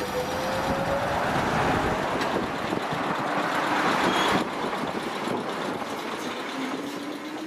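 Ichibata Electric Railway 3000 series electric train (ex-Nankai 21000 series) pulling away from the platform: a traction-motor whine climbing in pitch over the rumble of the wheels, easing off suddenly about four seconds in, then climbing again near the end as it picks up speed.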